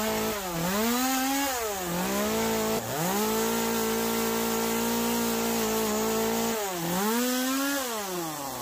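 Echo 2511 two-stroke top-handle chainsaw with an 8-inch carving bar, cutting into a wood block. The engine revs rise and fall several times, hold steady for a few seconds in the middle, and drop back toward idle at the end.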